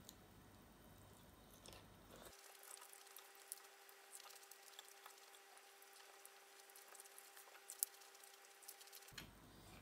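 Faint eating sounds: soft wet squishes of fingers handling cucumber salad and lettuce leaves, and chewing, with light clicks and one sharper click about eight seconds in. A faint steady hum starts about two seconds in and stops near the end.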